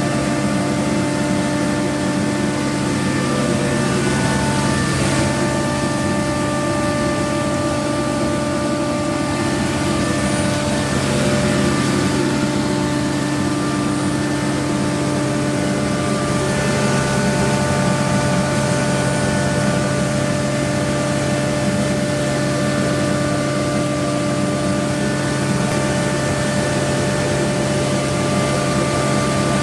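TYMCO regenerative air street sweeper running steadily while vacuuming leaves: a continuous drone of engine and blower with a constant whine over a rushing of air.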